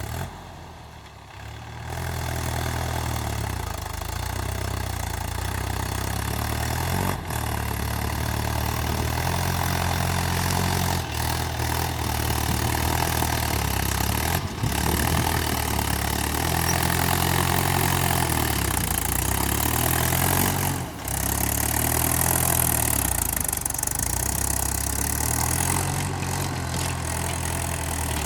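Mahindra tractor's diesel engine running while ploughing with a mouldboard plough, its engine note repeatedly dropping and rising again. The engine comes in loud about two seconds in.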